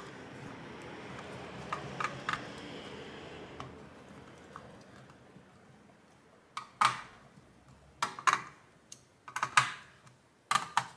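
Hand screwdriver tightening the screws in a graphics card's metal backplate: scattered sharp clicks and taps of the driver on the screws and plate, coming in small clusters, more of them in the second half.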